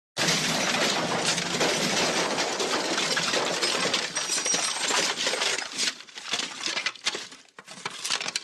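Crash sound effect: a long clattering smash of breaking and falling debris, full of metallic clinks. It starts suddenly and thins out into scattered rattles over the last few seconds.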